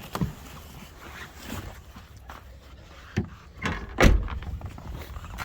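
Knocks and clunks of a minivan's door being handled, with one heavy thump about four seconds in.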